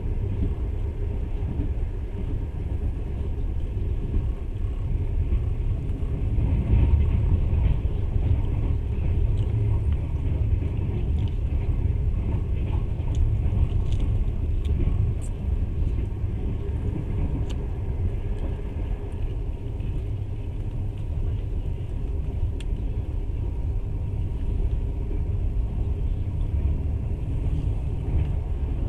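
Passenger train running at speed, heard from inside the carriage: a steady low rumble of wheels on the rails, with a few faint ticks now and then.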